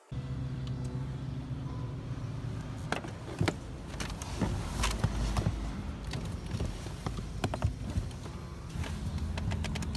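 A diagnostic interface head and its cables being handled and plugged in in a car's footwell: scattered clicks and knocks, with a quick run of clicks near the end, over a steady low hum.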